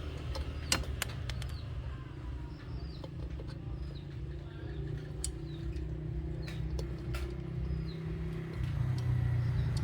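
A low engine-like rumble running steadily, a little louder near the end, with a few sharp metallic clicks and faint bird chirps.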